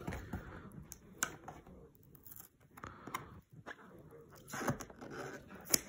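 Hands handling and opening a cardboard action-figure box: scattered soft scraping of the packaging with a few sharp clicks.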